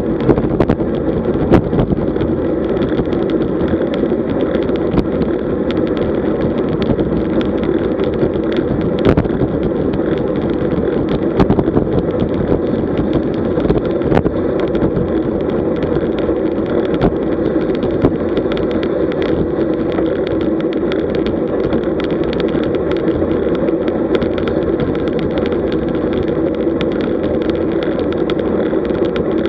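Steady wind rush over a bike-mounted camera's microphone, mixed with road-bike tyres on tarmac, while riding at about 35 km/h. Small knocks come through every few seconds.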